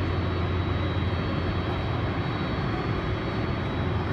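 Jet airliner's engines running at idle: a steady low rumble with a faint high whine above it.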